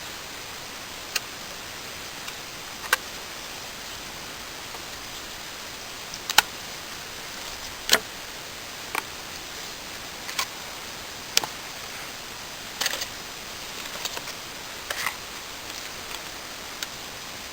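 About a dozen irregular sharp clicks and taps from hands working with small hard objects, over a steady hiss.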